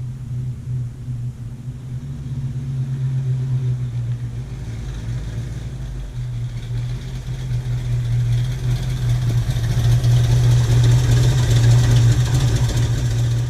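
A 1966 Mustang's V8 engine running steadily at a constant pitch, getting louder over the stretch, with a rising hiss in the second half.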